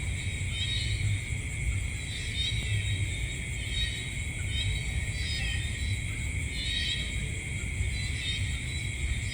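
Night insect chorus: crickets trilling steadily, with a short chirping call repeating every second or two, over a low rumble.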